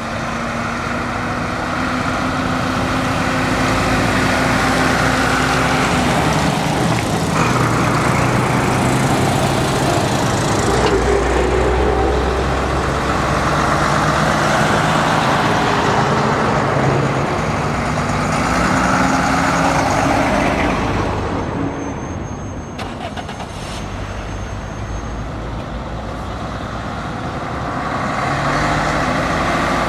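Old diesel trucks driving past one after another, their engine notes rising and falling as they pull away and change gear. The sound eases off about two-thirds of the way through, then swells again as the next truck comes up.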